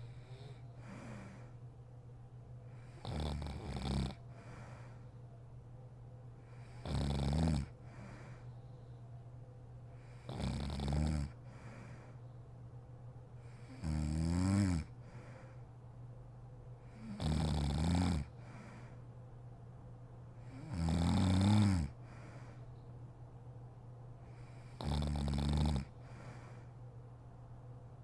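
A sleeping woman snoring: seven loud snores about three and a half seconds apart, each lasting about a second, over a steady low hum.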